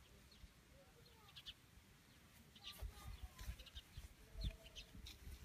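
Faint outdoor ambience: small birds chirping in short bursts, with a few faint distant animal calls and low wind rumble on the microphone.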